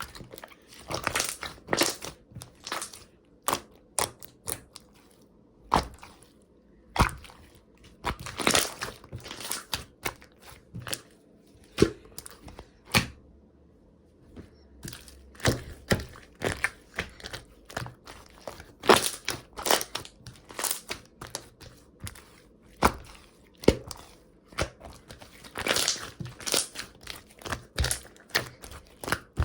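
Aloe slime being squeezed, pressed and stretched by hand, giving off irregular sharp pops and crackling clicks, with a short lull partway through.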